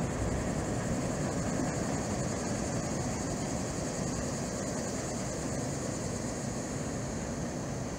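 Distant freight train rumbling steadily across a high steel trestle, slowly fading as the tail end passes. A steady high insect drone from the surrounding trees runs underneath.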